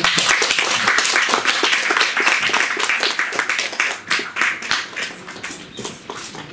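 Audience applauding: dense clapping at first, thinning to scattered claps that die away near the end.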